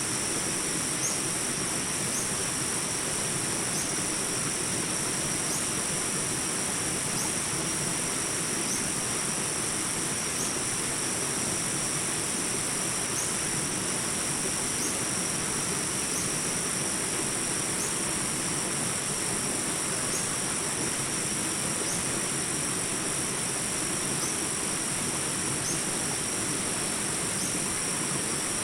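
Jungle ambience of small rapids: water rushing steadily over rocks, under a constant high insect drone, with a short rising chirp repeating about every second and a half.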